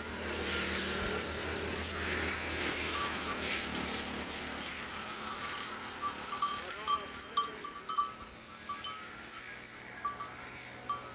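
Dromedary camels browsing on leafy bushes, with a steady rustle of branches. From about halfway a run of short, high ringing ticks comes in.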